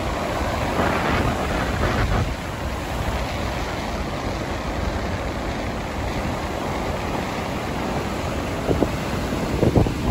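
Ocean surf breaking and washing up a sandy beach, with wind rumbling on the microphone. There are a few sharper, louder bursts near the end.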